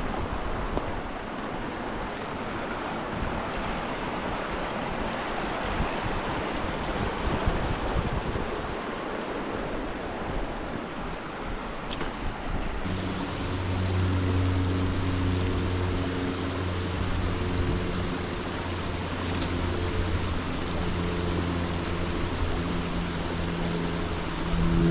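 Mountain beck rushing over rocks, a steady wash of water noise. About halfway through, background music with long held low notes comes in over the water.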